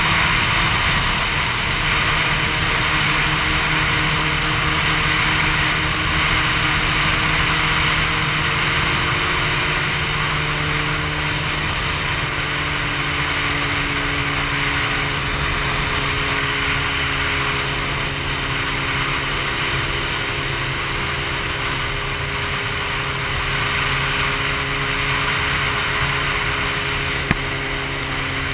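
Wind rushing over a camera on a moving motorcycle at highway speed, with the bike's engine running steadily underneath at a near-constant pitch.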